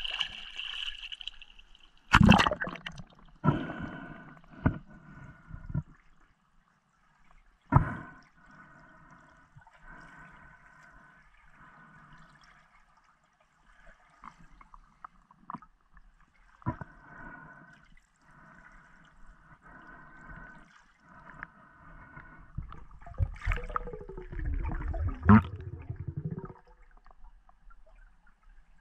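Water movement and bubbling picked up underwater through a camera housing, with soft pulses about once a second and a handful of sharp knocks. Near the end a low rumble swells with a falling sweep.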